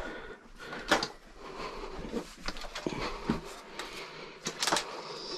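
Light rustling with scattered clicks and taps, a few sharper ones about a second in and twice near the end: loose tea being shaken out and scattered onto a wooden floor.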